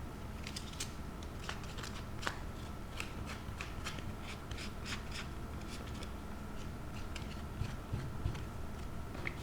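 Sheets of stiff paper being handled and pressed together while being glued, giving scattered light crackles and taps over a steady low hum.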